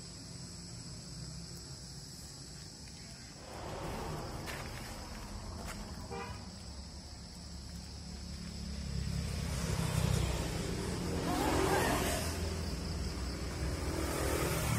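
Road traffic passing: vehicle engines rumbling and tyre noise that swells twice near the end.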